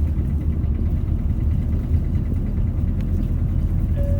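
City bus cabin noise: the engine and road rumble run steadily as the bus drives between stops.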